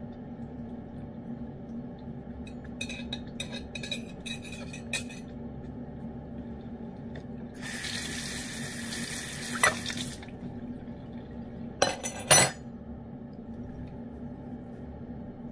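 Tap water runs for about two and a half seconds from a little before the middle, as a metal utensil is rinsed under it. Before it come a run of light metallic clicks, and after it a few sharp clinks, the loudest sounds here. A steady low hum lies under everything.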